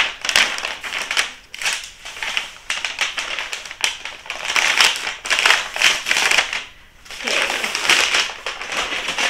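Packing paper crinkling and rustling as it is handled and folded around a package, in irregular bursts.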